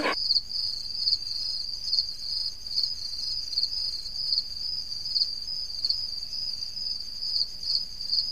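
Crickets chirping: a steady, high-pitched trill with a regular pulse.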